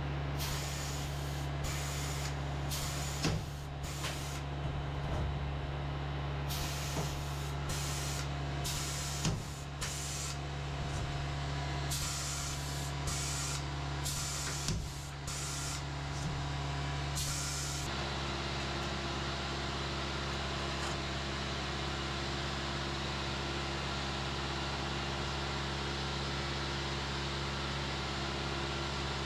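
Huck gun setting lockbolts: three clusters of short hissing bursts, each with one sharp snap as a fastener is set, over a steady low machine hum. The hissing stops a little over halfway through, and the hum runs on.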